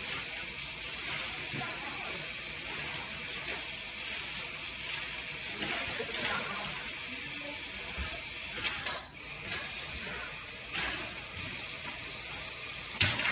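Water running steadily from a tap into a sink, with a few knocks and clatters along the way and a louder knock near the end.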